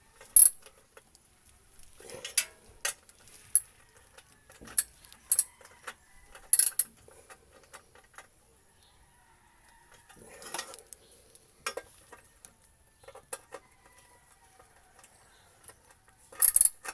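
Wrench and socket extender clinking and clanking against metal bolts and the underbody while refitting a cover. Scattered, irregular sharp metallic knocks, with a loud cluster near the end.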